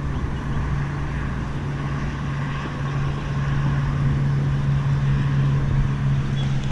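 A steady low motor-like hum holding one pitch throughout, over a steady background hiss.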